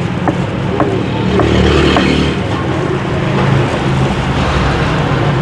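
Street traffic: motor engines running and passing close by, with a few sharp clicks over them.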